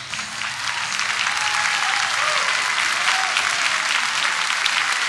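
Audience applauding, swelling to full strength about a second in, as the music dies away.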